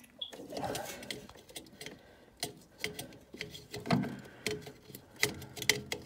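Irregular small clicks and taps of hands handling a refrigerator compressor's plastic run-start relay and its wiring, several in quick succession near the middle and end.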